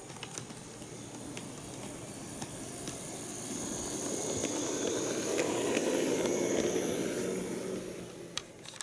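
KATO HO-gauge EF81 electric locomotive model running on track: motor whine and rolling wheels with scattered clicks as the wheels cross rail joints and a turnout. It grows louder as it passes close by and fades near the end.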